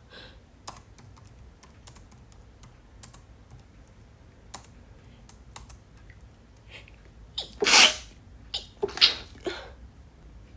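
Scattered key clicks of typing on a computer keyboard, then a woman with a cold sneezes loudly about three-quarters of the way through, and again about a second later.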